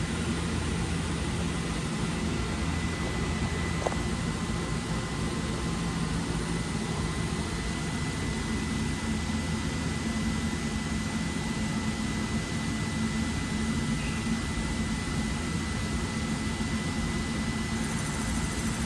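Omniturn GT-75 Series III CNC gang lathe running, a steady machine hum with a thin, steady high whine over it and one small click about four seconds in.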